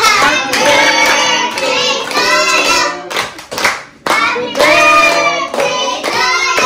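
A group of people singing a birthday song to a cake with lit candles, with hands clapping along.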